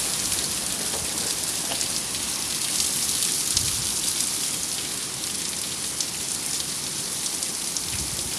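Torrential rain mixed with hail pelting a paved driveway: a steady dense hiss with many scattered sharp ticks of stones striking.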